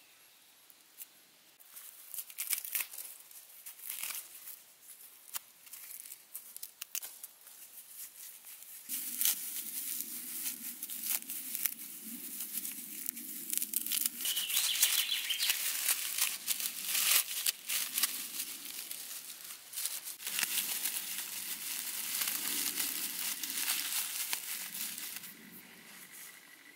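Dry shredded bark and grass fibres being torn, twisted and crumpled by hand into a tinder bundle, crackling and rustling. The crackles are sparse at first and turn dense and louder from about a third of the way in.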